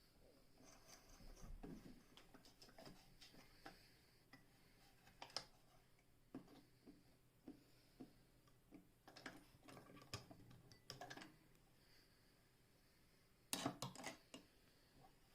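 Near silence with faint, irregular clicks and knocks from handling the Singer 99K sewing machine, and a quick run of louder clicks near the end; the machine is not running.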